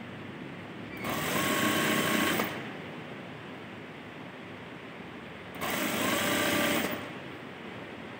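Sewing machine stitching in two short runs, each about a second and a half long, the second starting with a brief rising whine as the machine speeds up. It is sewing down a folded hem to make a casing for elastic.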